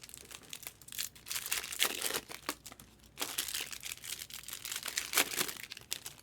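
Trading-card packaging crinkling and rustling as it is handled, in irregular crackles.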